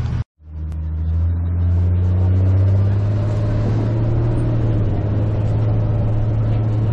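A motor vehicle's engine running, heard as a steady low drone. Its pitch rises slightly over the first couple of seconds and then holds, after a brief dropout to silence just after the start.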